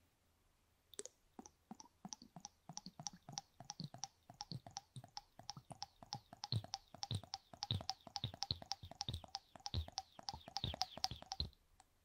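Liquid squirted from a plastic syringe into the canal of a silicone dummy ear, heard up close as a fast run of wet pops and clicks, about five a second, starting about a second in and stopping near the end.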